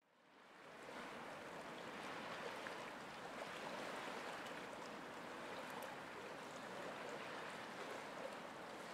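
Quiet flowing-stream ambience, a steady rush of water that fades in over the first second and then holds even.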